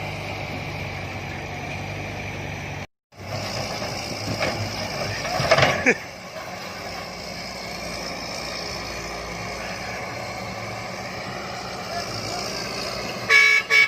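A heavy machine's engine running steadily, cut off briefly about three seconds in, with a louder jumble of noise around the middle. Near the end a vehicle horn gives two short toots.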